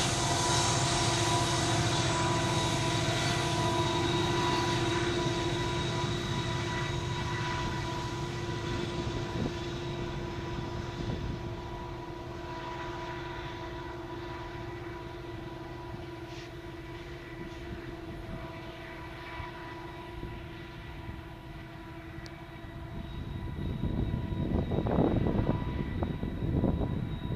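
BNSF diesel locomotives pulling away along the track, their engine drone with steady whining tones fading over about the first twelve seconds. Near the end a louder, rough, uneven noise swells up.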